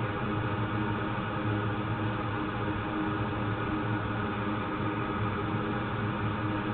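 Steady hum and hiss of a small fan motor running on an electronics repair bench, unchanging throughout.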